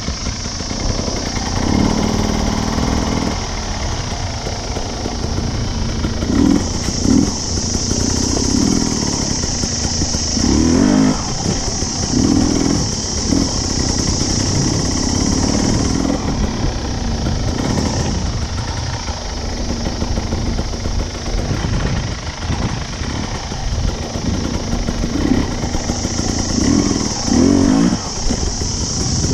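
Husqvarna dirt bike engine running under way, its note swelling and dropping again and again as the throttle is opened and closed.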